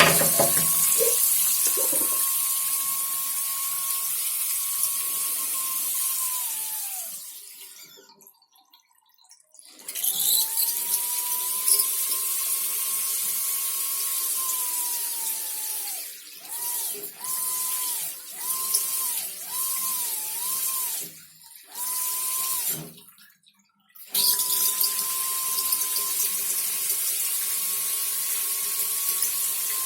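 A steady, fairly high whistle over a loud hiss of running water, as from a whistling water tap. The whistle and hiss stop together several times, the whistle sliding down in pitch as the flow dies away. In the middle comes a run of short on-off whistles.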